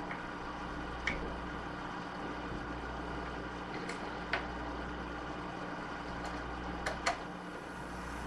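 About five light clicks of a hex driver and small metal parts as the old canopy standoff is unscrewed from the RC helicopter's carbon-fibre frame. A steady low electrical hum runs underneath.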